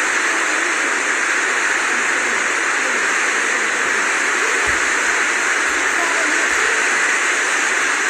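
Steady rushing noise of the swollen Kosi River in flood, surging through the barrage. A few low thumps come in the second half.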